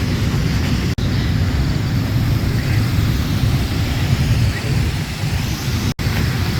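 Steady low rumble of outdoor street noise, broken by two brief dropouts, about a second in and near the end.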